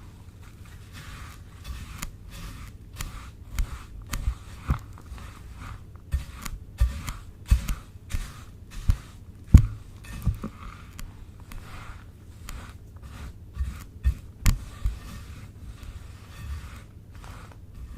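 Slime being worked by hand, giving irregular sticky clicks and crackling pops with soft low thuds.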